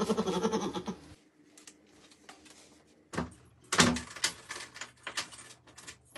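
A wooden door's lock and latch being worked: a click about three seconds in, a louder knock just before four seconds, then a run of smaller rattling clicks. A brief voice is heard at the very start.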